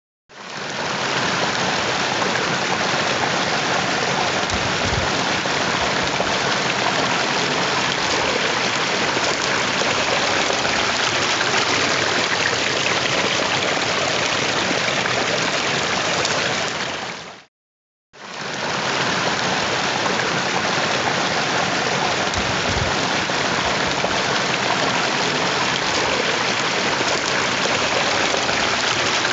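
Steady rush of a river's cascades and small waterfalls pouring over rock. It dips to silence for under a second a little past halfway, then comes back.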